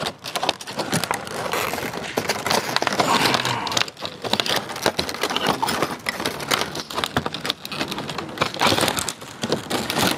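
Stiff clear plastic blister packaging crackling and crinkling as it is bent and pried open by hand, a dense run of sharp crackles with a brief pause about four seconds in. The packaging is very tough and slow to give.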